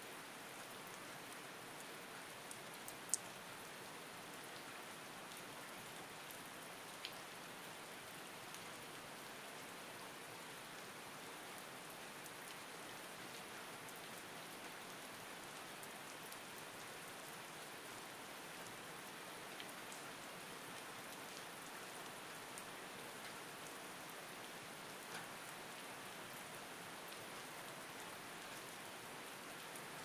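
Steady rain falling, an even hiss with a few sharp ticks of single drops, the loudest about three seconds in.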